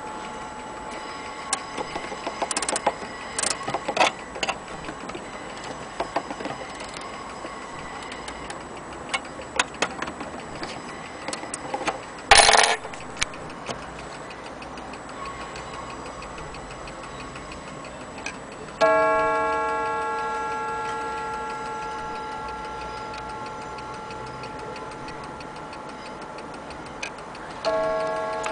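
German HAS striking mantel clock ticking as its hands are turned by hand, with small clicks and one louder rattle about halfway through. Then it strikes: one ringing note that fades slowly, and a second strike near the end.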